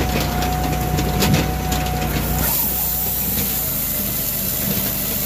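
Firewood processor with a 26.5 HP Kohler EFI engine running under load, with a steady whine. About halfway through, the sound changes to a high hiss as the saw bar starts cutting through a log.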